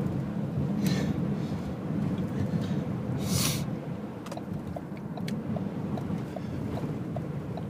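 Steady low rumble, like a running vehicle, with two brief hisses and, from a little past halfway, a faint regular ticking about two to three times a second.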